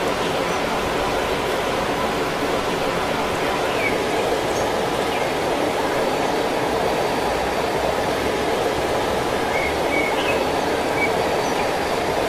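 Waterfall rushing in a steady, even roar of falling water, with a few faint high chirps above it.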